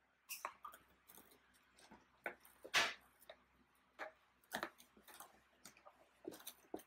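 Hands rummaging in a cardboard box of toy packaging: scattered light clicks and rustles of cardboard and plastic, with one louder, longer rustle or scrape about three seconds in.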